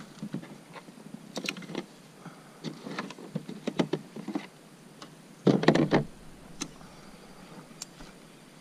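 Irregular light knocks and clicks of gear being handled on a plastic sit-on-top kayak beached on gravel, with a louder, denser clatter lasting about half a second roughly five and a half seconds in, then a few single clicks.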